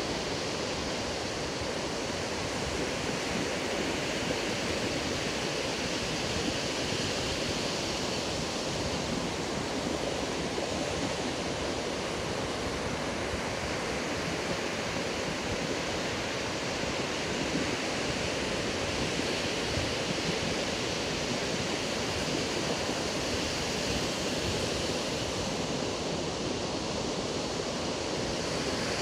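Ocean surf breaking and washing up a sandy beach, a steady rush of noise with no let-up.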